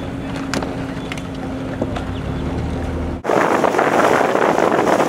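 A small boat motor runs with a steady low hum, with a few faint clicks over it. After an abrupt cut about three seconds in, loud wind rushes over the microphone.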